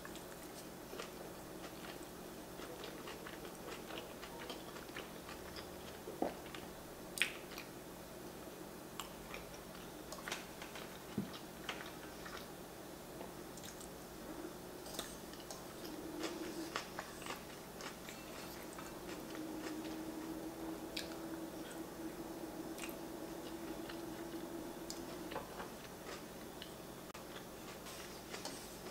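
Close-miked mouth sounds of a woman chewing a large bite of pork chorizo enchilada: soft, irregular clicks and smacks.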